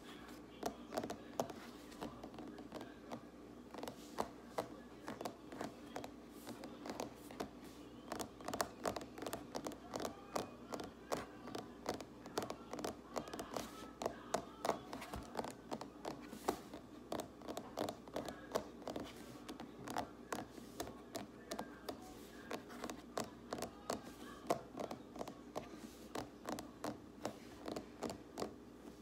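Fingers tapping rapidly on a hard surface: an irregular string of quick, sharp clicks, several a second.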